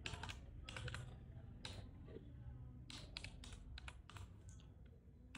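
Faint typing on a computer keyboard as a phone number is keyed in: quick runs of key presses, with a pause of about a second near the middle.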